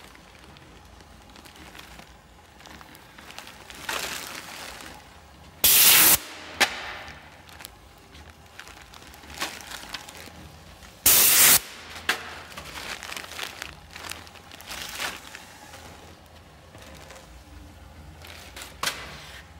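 Ishida DACS checkweigher at work: two loud half-second bursts of hiss-like noise about five seconds apart, with faint clicks and rattles and a low steady hum between them.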